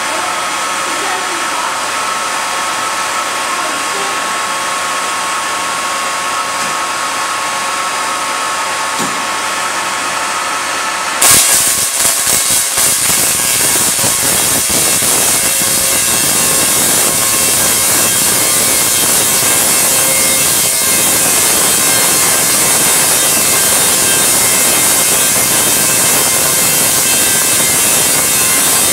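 A large Tesla coil starts firing about eleven seconds in. There is a sudden, loud, continuous rasp of electrical arcs, some striking the wire mesh of the Faraday cage, and it stays steady from then on. Before that there is only a steady hiss with a faint hum.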